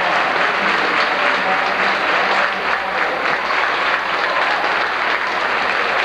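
Gymnasium crowd applauding steadily, with cheerleaders clapping and some voices mixed in, as a player is introduced before a high school basketball game.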